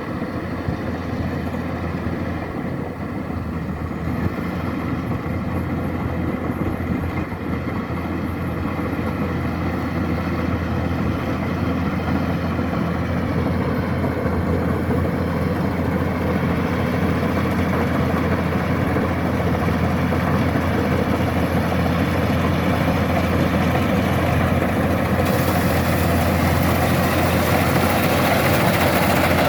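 Kubota combine harvester's diesel engine and machinery running steadily, growing gradually louder. A higher hiss joins in about 25 seconds in.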